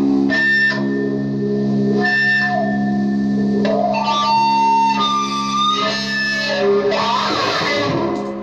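Electric guitar through an Orange amp: a looped low drone holds steady underneath while single lead notes are played over it, each held for about half a second to a second, some sliding or bending in pitch.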